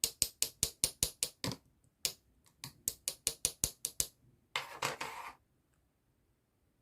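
Rapid, sharp mechanical clicking, about six clicks a second, in two runs with a short pause between, followed near the end by a half-second burst of rustling noise.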